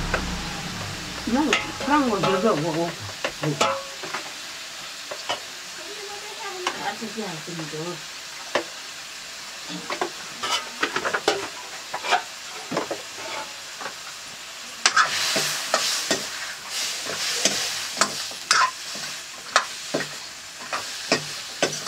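Buffalo meat frying in a steel wok over a wood fire, with a metal spatula scraping and clinking against the pan as it is stirred. The sizzling grows louder for a few seconds about two-thirds of the way through.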